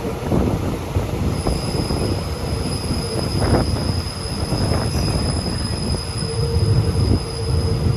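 Train running along the rails: a steady low rumble with a faint, steady high-pitched whine from about a second in.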